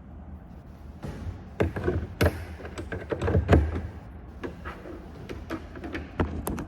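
Irregular knocks and thumps, loudest about two seconds and three and a half seconds in, over a low steady hum.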